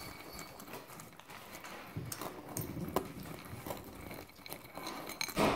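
Soft crunching of soup crackers being chewed, with scattered small clicks and a louder burst of sound near the end.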